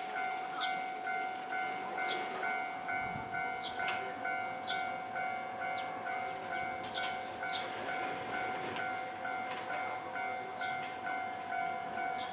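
Japanese railway level-crossing warning signal sounding its repeated clanging alarm, about two strokes a second. Short high falling chirps sound irregularly over it.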